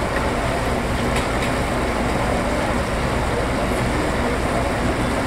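Steady low rumble and hiss of a cruise ship under way, heard from its open deck.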